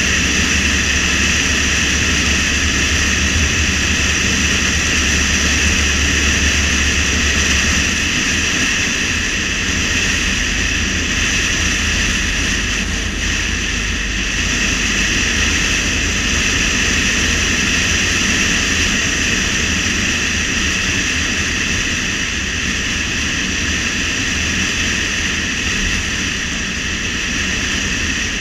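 Steady drone of a car driving at road speed: engine, tyre and wind noise. The deep rumble eases a little about eight seconds in.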